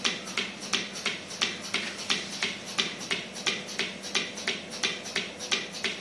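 Portable cow milking machine running with its teat cups on the udder: the pulsator gives short hissing clicks, about three a second, over the steady hum of the vacuum pump as milk is drawn off.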